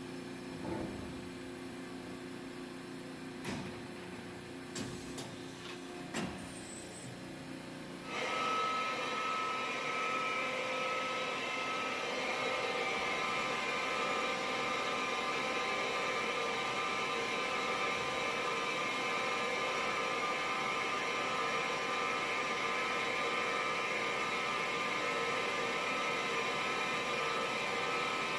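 CNC multi-function machine: a steady machine hum with a few short knocks and clicks, then about eight seconds in it starts running louder with a steady whine made of several fixed pitches, which carries on.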